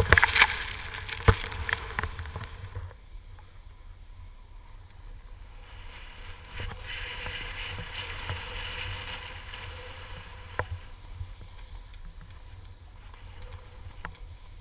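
Snowboard riding through powder: loud rushing of snow spray and wind over the pole-mounted action camera's microphone, with a few sharp knocks. After about three seconds it drops to a softer, steady rush of riding on snow.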